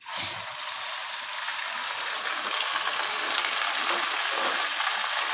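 Hot oil sizzling in a frying pan as minced meat goes in on top of browned onions. The sizzle starts suddenly and holds as a steady loud hiss.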